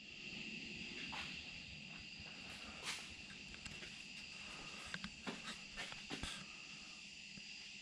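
Faint steady high-pitched whine, with a few light clicks and knocks scattered through it: one about three seconds in and a small cluster around five to six seconds.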